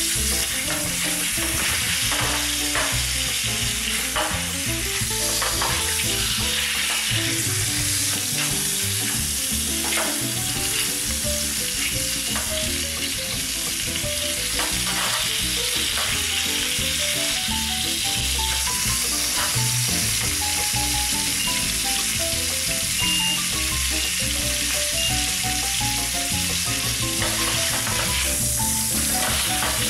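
Beef short ribs sizzling as they brown in hot oil in a stainless steel roasting tin, with a wooden spatula scraping across the metal as it turns them.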